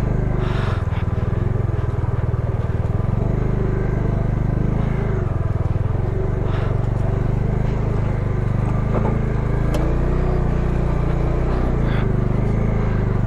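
Bajaj Dominar 250 motorcycle's single-cylinder engine running steadily under way, with small rises and falls in pitch.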